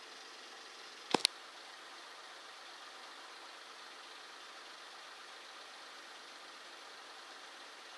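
Faint, steady background hiss of harbour ambience, with two sharp clicks close together about a second in.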